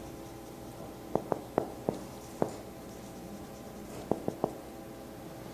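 Several short, sharp taps over a faint steady hum: five spread over about a second and a half, then three more in quick succession about four seconds in.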